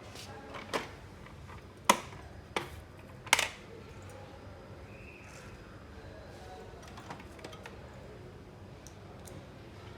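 Four sharp knocks and clicks in the first few seconds, then a few faint ticks: hard parts being handled during a copier repair.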